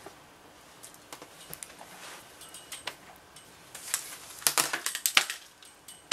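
A few sparse clicks of a laptop's keys and trackpad, then a louder flurry of clicks and rustling about four seconds in.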